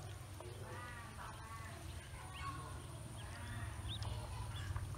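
Ducklings peeping: a quick run of short high calls about a second in, then scattered single peeps, over a steady low hum.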